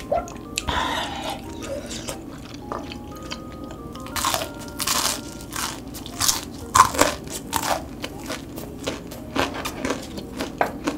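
Close-up crunching as crispy battered fried loach is bitten and chewed, a run of sharp crunches from about four seconds in.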